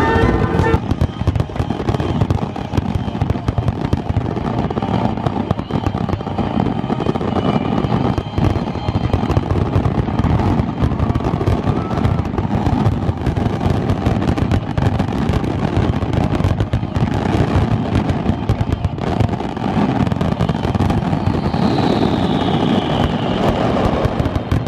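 Closing barrage of a professional fireworks display: a dense, continuous rattle of shell bursts and crackle. A falling whistle near the end.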